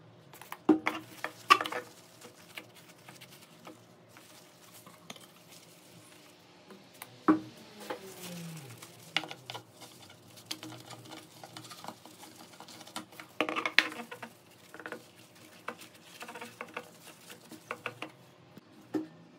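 Cleaning a clear plastic instrument-cluster lens by hand: a couple of quick squirts from a trigger spray bottle of glass cleaner in the first two seconds, then a cloth rubbing over the plastic, with scattered sharp knocks as the lens is handled on a wooden bench, loudest around the middle and again about two-thirds through.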